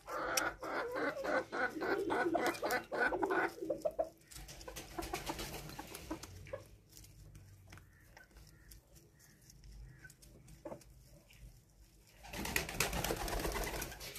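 Doves cooing in the background, with a rapid series of ticks over the first few seconds and a louder noisy stretch near the end.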